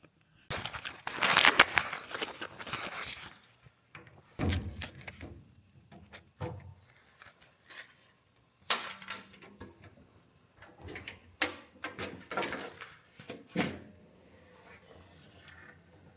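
Steel drawers of a U.S. General 72-inch rolling tool cabinet sliding open and shut on their slides: a long sliding rush about half a second in, then a series of knocks and clunks as drawers close.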